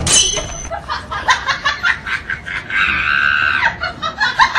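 A high-pitched voice screaming and cackling in quick repeated bursts, with one long held scream a little past the middle.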